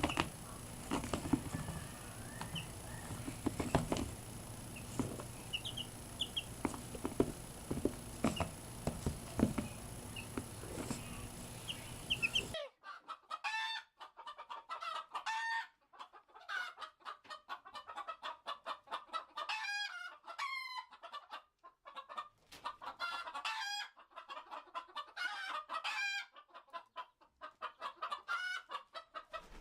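Chickens clucking: a busy run of quick, repeated clucks and short calls. About twelve seconds in, the background noise cuts out abruptly and the clucking carries on, clearer and closer together.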